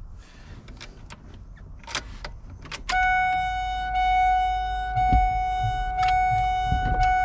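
A few light clicks of parts being handled at the steering column, then about three seconds in the truck's dashboard warning chime starts: a steady single tone that swells slightly about once a second.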